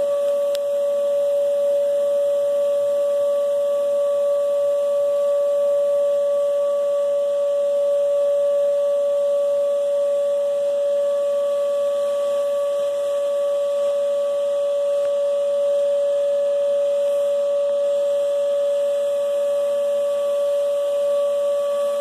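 Vacuum cleaner motor running with a loud, steady whine that cuts off near the end.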